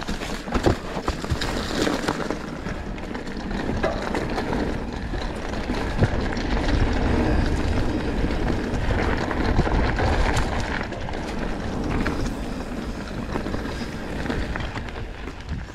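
Mountain bike descending a rough dirt trail: tyres rumbling over dirt and rocks, with rattles and knocks from the bike and a sharp knock about six seconds in.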